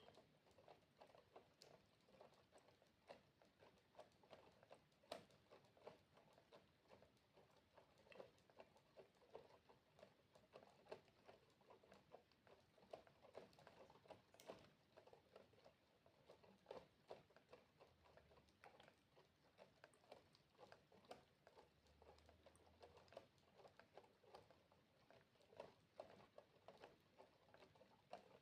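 Faint water droplets dripping, many small irregular drips a second, with an occasional sharper drop.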